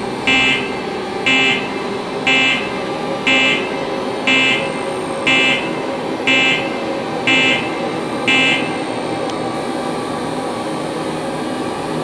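Containment-unit alarm buzzer sounding in short pulses about once a second, nine times, over a steady mechanical hum, then stopping about nine seconds in; the alarm signals that the gas is about to be released.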